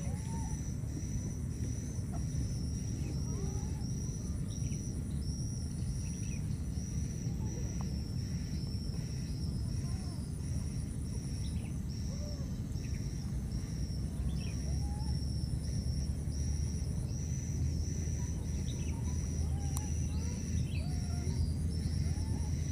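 Tropical outdoor ambience: insects chirping in a pulsing high-pitched rhythm of about two chirps a second, with a higher steady insect trill that stops and starts a few times, over a low rumble that grows louder near the end. Faint short calls sound here and there.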